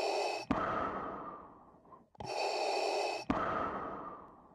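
Darth Vader's mechanical respirator breathing sound effect. Each breath is a steady hiss of about a second that ends in a click and then fades away, repeating about every two and a half seconds.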